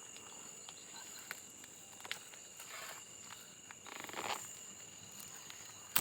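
Steady high-pitched drone of insects, with scattered footsteps and a brief rasping noise about four seconds in.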